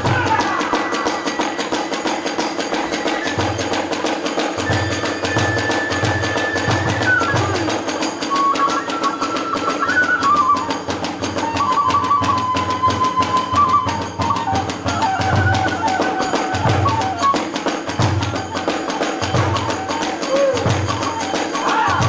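Hiroshima kagura accompaniment: a bamboo flute (fue) plays a melody of held notes that step up and down, over repeated beats of the big kagura drum and the steady clanging of hand cymbals (tebiragane).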